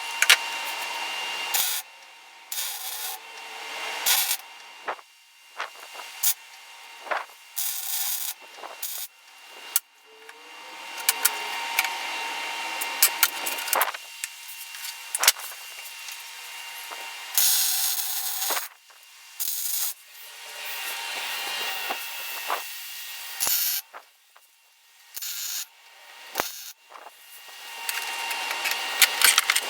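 Power tools working wood: stretches of grinding, rubbing noise with a faint steady whine from the motor, cutting in and out abruptly many times as short clips follow one another.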